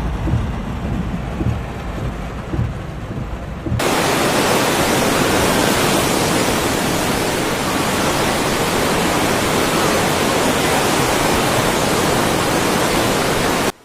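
A low, uneven rumble, then about four seconds in a sudden cut to a loud, steady rush of water that holds unchanged until it cuts off near the end.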